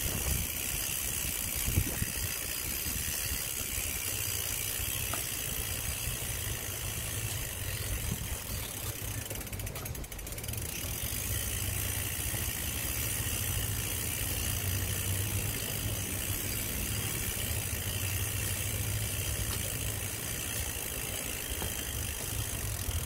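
Bicycle rear freewheel ticking steadily as the bike is wheeled along, over a steady low rumble.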